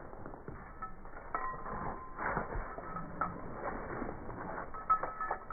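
Footsteps and dogs' paws scuffing and clicking on a sandy dirt path, with short metallic clinks from dog collar tags and hardware; the sharpest clink comes about five seconds in.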